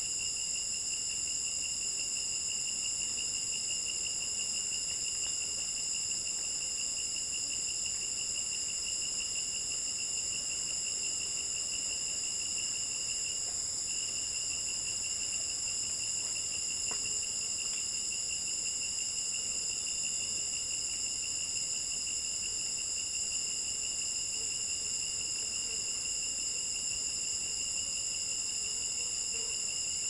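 Insect chorus: several steady, high-pitched shrill tones layered together, with a lower fast-pulsing trill that drops out briefly about halfway and then resumes.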